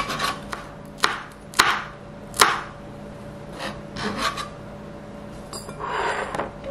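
Kitchen knife chopping green chili peppers on a cutting board: separate sharp knocks, the loudest in the first two and a half seconds and softer ones after, then a short rasping scrape near the end.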